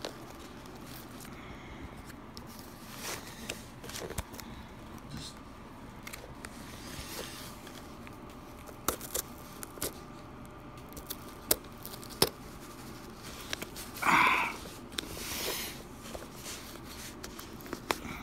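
Corrugated cardboard mailer box being torn open along its tear string: scattered crackles, clicks and scrapes of ripping cardboard, with a louder rip late on.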